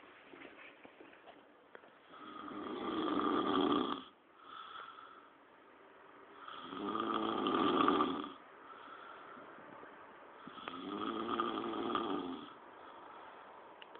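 Person snoring heavily: three long, rasping snores about four seconds apart, with softer out-breaths between them.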